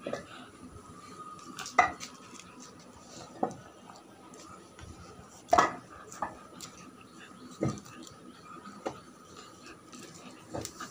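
Scattered sharp clicks and taps, about eight spread out, as a beagle puppy mouths and play-bites a hand. A faint steady high tone runs behind them.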